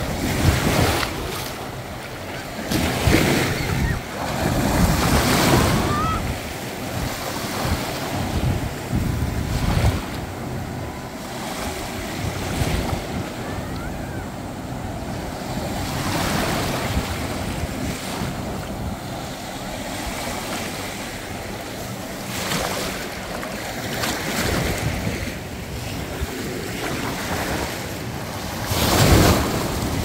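Small waves washing in over a sandy shore, the wash swelling and ebbing every few seconds, with wind buffeting the microphone. A louder surge of splashing comes just before the end.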